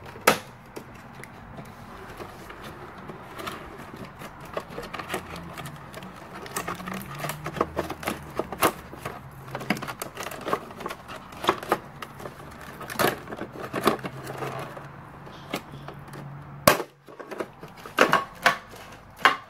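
Hard plastic parts of a toy camper clicking and knocking irregularly as it is handled and pulled open, with one sharp knock near the end.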